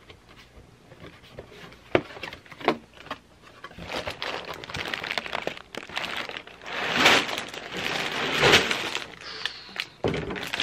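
A few sharp taps of a cardboard box being handled, then sealed plastic bags of LEGO pieces crinkling and sliding around inside the box as it is tipped, in two louder surges in the second half.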